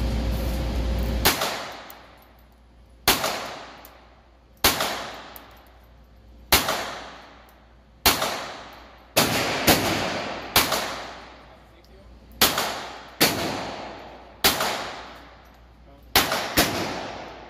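Semi-automatic pistol fired shot by shot, about fifteen shots a second or two apart with a few quicker pairs. Each report is followed by a long echo off the walls of an indoor shooting range.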